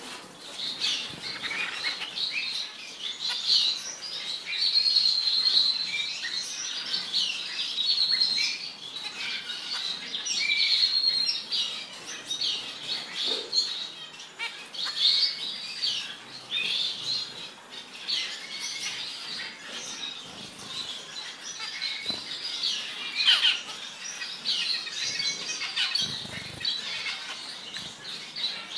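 Aviary finches, zebra finches among them, chirping constantly with many short, high calls overlapping one another.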